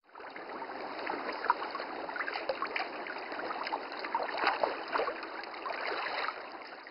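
Running water trickling and bubbling: a steady wash dotted with small splashes and blips. It fades in at the start and cuts off at the very end.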